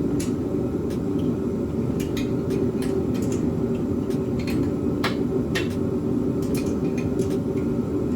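Wrench clinking against header bolts and metal while header bolts are tightened: a dozen or so light, irregularly spaced clicks. Under them runs a steady low hum.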